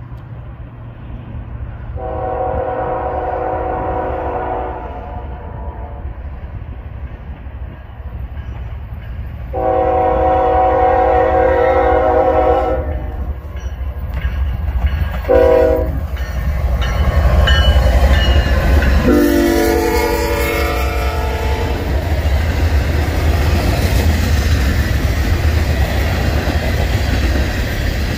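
Union Pacific freight locomotive sounding its air horn in a long, long, short, long sequence, the standard grade-crossing signal, the last blast dropping in pitch as the locomotive passes. Then a steady rumble of the locomotives and freight cars rolling by on the rails.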